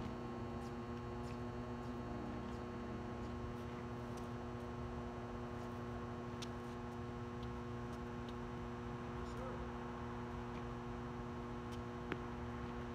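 Steady electrical hum made of several fixed tones. Over it come a few faint, sharp taps of a tennis ball struck by rackets, one a little louder near the end.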